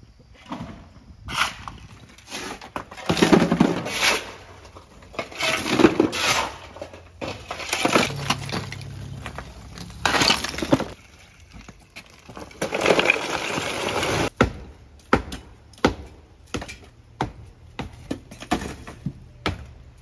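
Broken concrete-block rubble being shoveled and dumped, crashing, scraping and clattering, then from about fifteen seconds in a quicker run of sharp knocks, hammer blows on block masonry during demolition.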